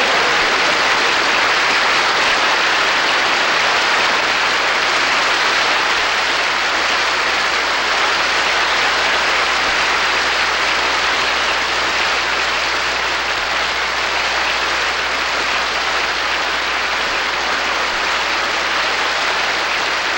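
A large audience giving a standing ovation: loud, sustained applause that fades only slightly toward the end.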